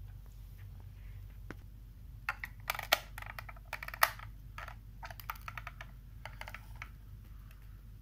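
A quick, irregular run of light clicks and taps from small hard parts being handled, starting about two seconds in and dying away near the end, with two louder clicks about a second apart.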